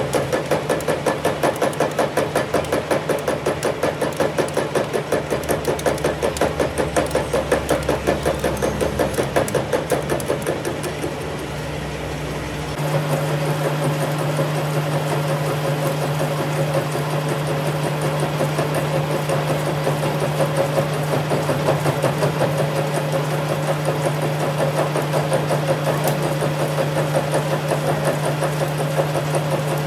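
Metalworking machine tool running, with an even knock about three times a second. About 13 seconds in, the knocking gives way to a steadier, louder hum with a low drone.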